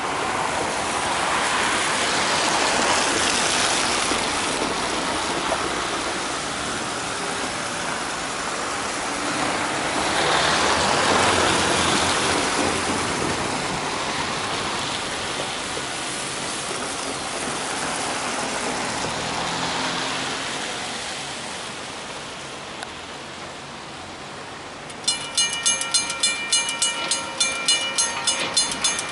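Cars passing over a wet road, their tyres hissing in slow swells. Near the end a level-crossing warning bell starts ringing rapidly, about four strikes a second, as the crossing activates for an approaching train.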